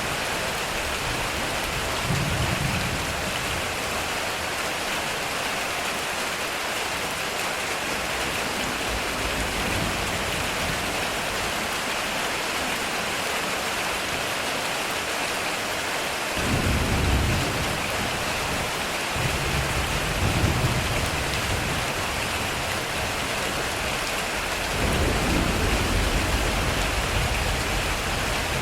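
Heavy rain falling steadily on a metal roof, with low thunder rumbles rolling in several times: briefly about two seconds in, twice more past the middle, and a longer one near the end.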